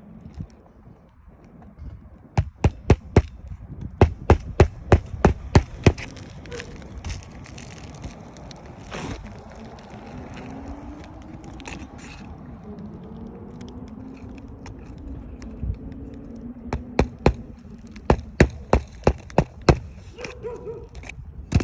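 Hammer strikes on an asphalt shingle roof, in three quick runs of about three blows a second, as a shingle is worked over in a repair attempt. A faint wavering hum runs through the quiet middle stretch.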